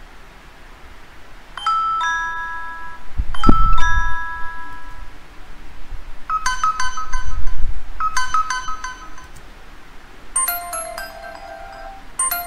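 Intro-animation sound effects: bright electronic chime dings, a two-note ding about two seconds in and again a second or so later, then quick clusters of chimes from about six seconds in and again near the end, with two deep low booms, the loudest sounds, around three and seven seconds in.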